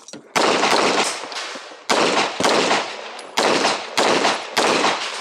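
Handgun with a red-dot sight fired about six times at an uneven pace, the shots half a second to a second and a half apart, each trailing off in a short echo.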